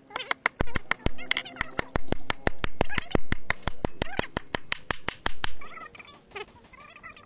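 Rapid, regular hammer taps on the metal shaft and blade collar of a homemade table saw, about five a second, stopping about five and a half seconds in. Short animal calls sound in the background.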